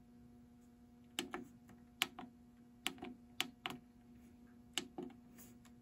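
Program Select push-buttons on a Sequential Prophet VS Rack synthesizer clicking as they are pressed and released, about ten sharp clicks, several in quick pairs. Under them runs a faint steady hum from the old unit's power supply.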